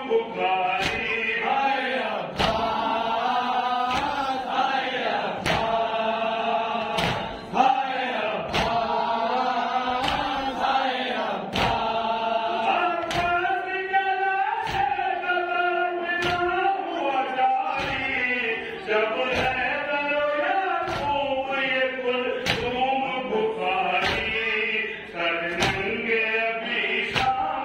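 Men reciting a noha, an Urdu lament chanted in unison by a lead reciter and a group. Sharp slaps about once a second keep time through it, the beat of chest-beating (matam).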